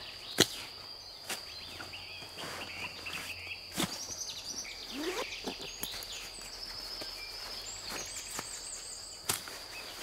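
Hammock fabric rustling as it is pulled out of its stuff sack, with a few sharp clicks of handled gear, the loudest about half a second in. Behind it, crickets chirp in one steady high tone, and a bird calls briefly past the middle.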